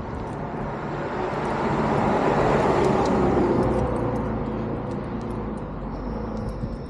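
A car passing by on the road alongside, its noise swelling to a peak about two to three seconds in and then fading away over steady traffic rumble.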